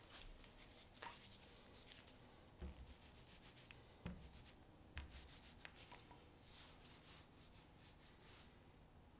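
Small foam paint roller rolling wet paint onto a wooden boat hull, the rolling stage of roll-and-tip painting. It makes a faint, repeated rubbing swish with each stroke, with a few light clicks and knocks along the way.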